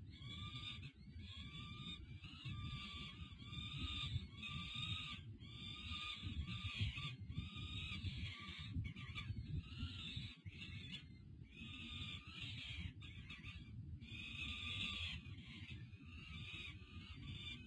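Peregrine falcon chicks begging with repeated, almost unbroken calls while being fed, over a steady low rumble.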